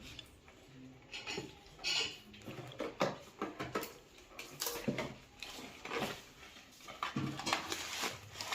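Household things being handled: an irregular run of short clicks, knocks and rustles, some with a brief clink, as boxes and dishes are moved about.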